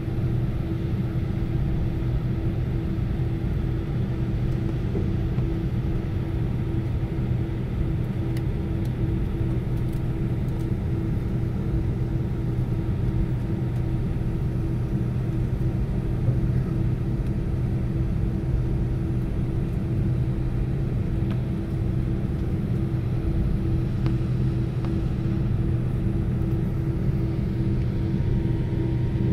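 Cabin noise inside an Airbus A319 taxiing: its IAE V2500 turbofan engines running at low taxi thrust, a steady rumble with a low, even hum.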